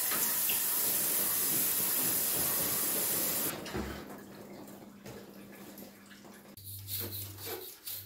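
Water jetting from a garden-hose spray nozzle onto the split air conditioner's indoor coil, a steady hiss that stops about three and a half seconds in. Quieter rubbing follows.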